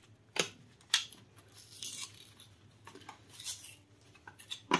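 Cardboard blister-pack card of a fountain pen being torn open by hand: several short rips and crackles, roughly a second apart.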